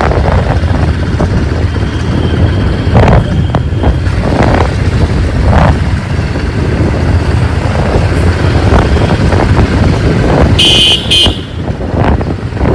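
Motorcycle riding through city traffic: a steady engine and road rumble with wind on the microphone. A vehicle horn sounds once, briefly, about two seconds before the end.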